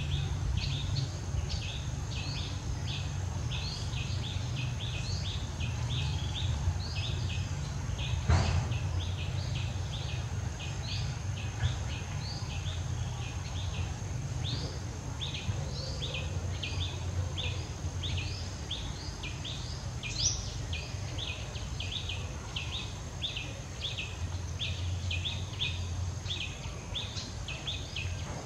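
Natural ambience: a constant train of short, high chirps, about three a second, over a steady high whine and a low rumble. A single sharp click comes about eight seconds in.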